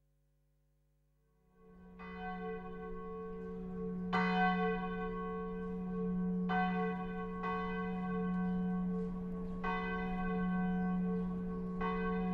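Church bells ringing: six strokes, roughly two seconds apart, each ringing on over a steady low hum. The bells start after about a second and a half of silence.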